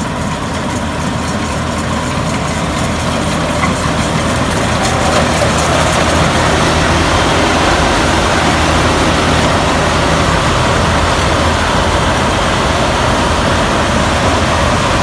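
Rice combine harvester's diesel engine running steadily, with a dense mechanical rush that swells over the first few seconds and then holds.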